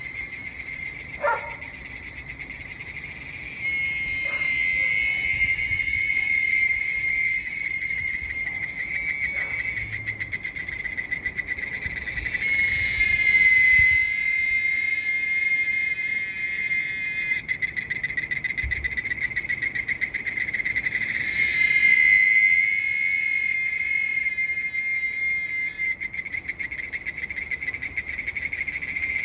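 Cicada chorus: a steady, high pulsing buzz that swells louder and eases off in waves. A brief sharp sound comes about a second in.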